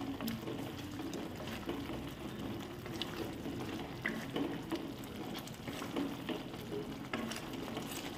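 Thick palak paneer gravy simmering in a pot while being stirred with a wooden spatula: a steady low bubbling with a few scattered soft pops and scrapes.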